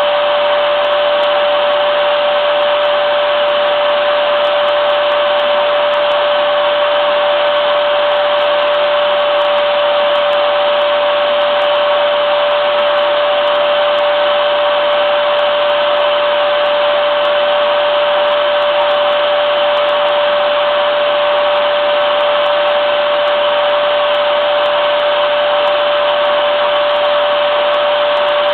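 Vacuum cleaner (hoover) running continuously at constant speed: a steady rush of air with one unchanging whining tone.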